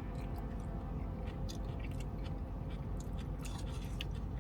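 A person chewing a mouthful of seasoned bean sprouts, with short irregular mouth clicks over a steady low hum.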